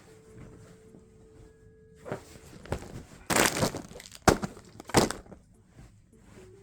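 A run of knocks and clatters with a brief scraping rush in the middle, the sharpest a single click a little after four seconds: handling noises, such as things being moved about or the camera being picked up.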